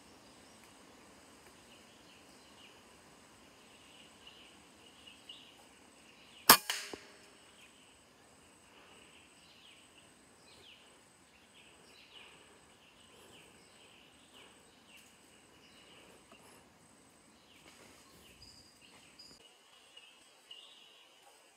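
A PCP air rifle fires once, about six and a half seconds in: a single sharp crack followed a moment later by a smaller knock. Faint high chirping goes on in the background.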